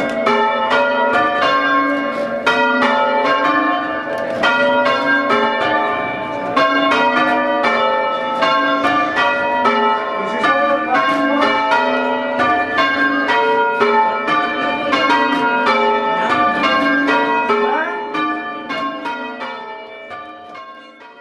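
Church bells being rung in rapid succession, several strikes a second overlapping and ringing on, as in change ringing. The ringing fades out near the end.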